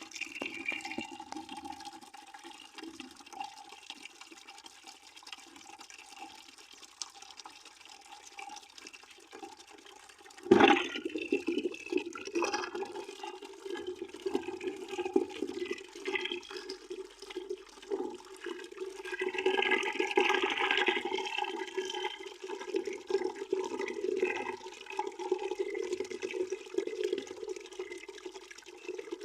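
Water pouring into a bucket: a steady splashing rush. About ten seconds in there is a sudden loud knock, and after it the pouring is louder.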